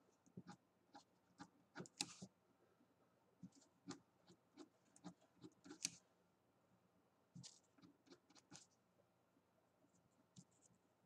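Faint, short scratchy strokes of a drawing tool on paper, coming in irregular clusters with pauses of a second or so between them, as fine hairs are worked into a graphite drawing.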